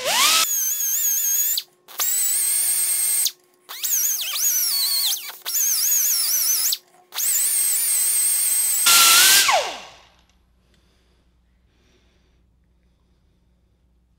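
Right-angle air grinder with a small disc grinding steel in five short runs, its high whine wavering as the disc bites, with brief pauses between. After the last run, about nine seconds in, it winds down with a falling whine and goes quiet.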